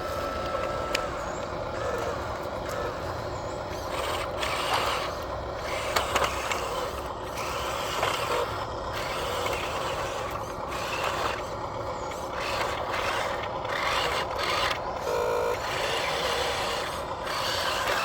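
Radio-controlled model excavator and trucks working: the steady whirr and grind of small electric motors and gearboxes, broken by frequent short clicks, with a brief steady beep about fifteen seconds in.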